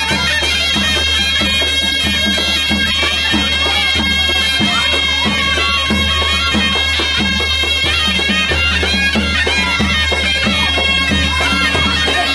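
Loud wind-instrument music: a melody over a steady low drone, playing without a break.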